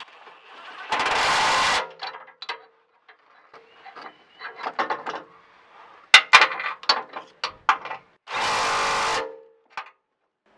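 A power ratchet tightens a shock-mount flange bolt. The motor runs in two steady bursts of just under a second each, about a second in and again near the end, with a scatter of ratchet clicks in between.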